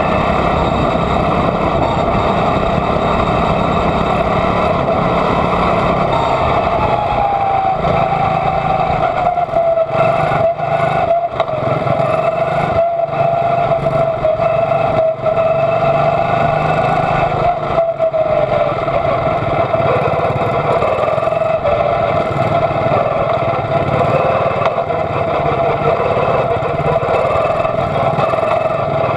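Quarter midget's single-cylinder Honda engine running hard at racing speed, heard from on board the car. The pitch holds mostly steady, dipping briefly a couple of times as the car lifts off for the turns.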